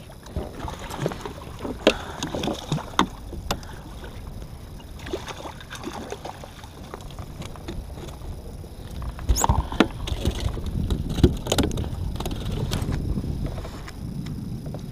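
A speckled trout being reeled in and netted beside a fishing kayak: scattered sharp clicks and knocks of rod, reel and landing net against the hull over water sloshing, busiest about nine to twelve seconds in.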